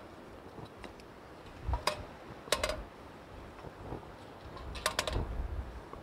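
Split kindling sticks being handled and fed into a small wood-burning camp stove: a few sharp wooden clicks and knocks in small clusters, about two seconds in, shortly after, and again near five seconds. Wind rumbles on the microphone underneath.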